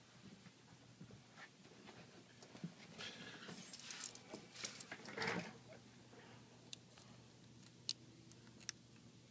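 Faint clicks and light scraping from small tools and parts being handled on an iPad 3 as its digitizer ribbon cable is worked back into the motherboard connector. The handling is busiest in the middle, followed by a few isolated sharp ticks near the end.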